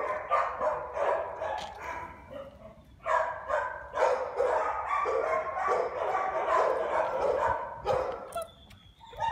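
Dogs barking and yelping on and off, with a brief lull about two and a half seconds in and another shortly before the end.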